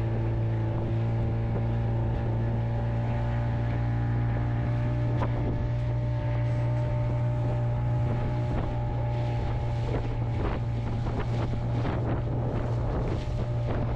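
Fishing boat's motor running steadily at one pitch, with wind on the microphone. From about two-thirds of the way in, short knocks and splashes come in over it as the boat crosses the waves.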